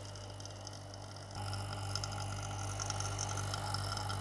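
Small electric vacuum pump running with a steady hum, holding vacuum on a resin-infusion bag as epoxy is drawn in, with a faint high crackle over it. It gets louder about a second and a half in.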